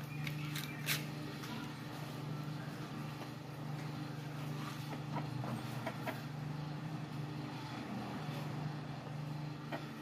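A steady low mechanical hum, as of a running motor, with a few sharp clicks about a second in.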